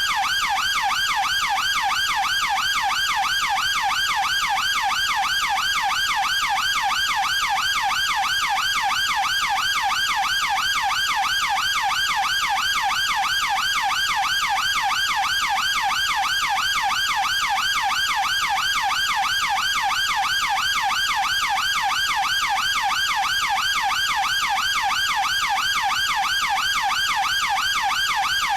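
UK police car siren on its fast yelp tone: a rapid, evenly repeating up-and-down wail, loud and unbroken.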